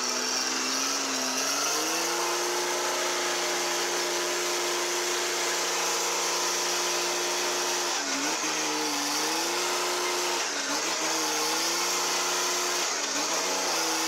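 Mercedes-Benz truck's diesel engine held at high revs as it strains to drive through deep mud. The revs climb about two seconds in, then dip and pick up again three times in the second half.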